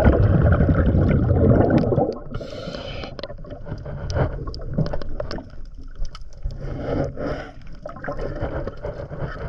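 Water gurgling and bubbling, loudest for about the first two seconds, then quieter with scattered clicks.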